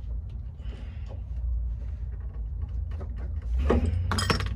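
Metal parts clicking and scraping as a stubborn suspension part is worked into its mount, with a louder scrape near the end over a steady low hum.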